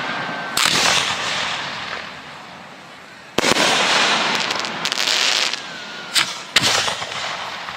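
Fireworks going off: sharp bangs about half a second in and about three and a half seconds in, then a close pair near the end, each followed by a long hissing tail that fades away.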